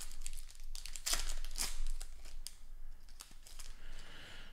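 An Upper Deck Marvel Beginnings trading card pack being torn open by hand, its wrapper crinkling in short irregular crackles, busiest from about one to two seconds in.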